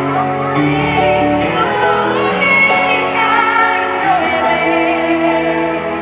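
Woman singing a slow pop ballad live over piano accompaniment, in an arena amplified through a PA.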